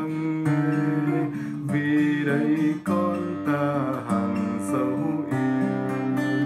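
A man singing a Vietnamese hymn, accompanying himself on a strummed acoustic guitar.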